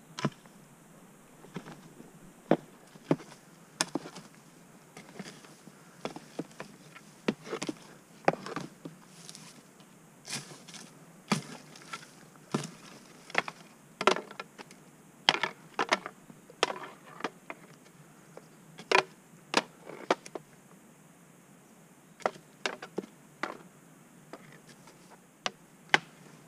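Scattered sharp clicks and light snaps, coming irregularly, sometimes two or three close together, with quiet between them.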